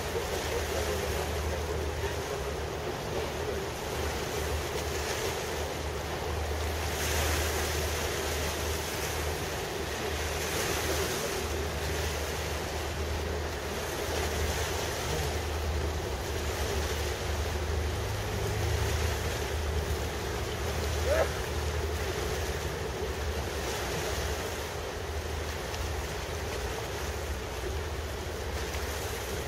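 Wind blowing across the microphone, swelling in a few gusts, over a steady low rumble of boat engines and water on the river. A brief squeak about two-thirds of the way through.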